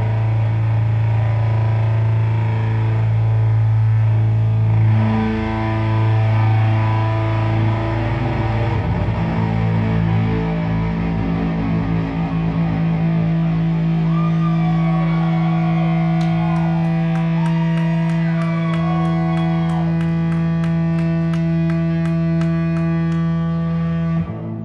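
Live band playing distorted, effects-heavy music, a sustained drone of held notes with guitar. Gliding pitches come in past the middle, with a fast ticking of about two or three clicks a second near the end, and the sound drops off suddenly at the very end.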